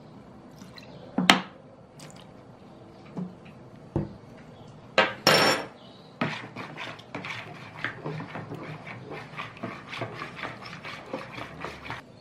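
A few sharp clinks and knocks of a spoon, bottle and cap being handled and put down, then a quick run of small taps and scrapes, several a second, of a utensil stirring a yeast-and-water mixture in a plastic bowl.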